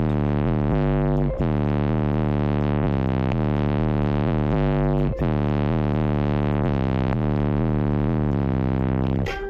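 Bass-heavy electronic music played very loud through a car audio system of eight Sundown Audio SDDN subwoofers on four Ruthless Audio 10,000-watt amplifiers: held deep bass notes with a dense buzz of overtones, in a repeating pattern with a brief drop about every four seconds.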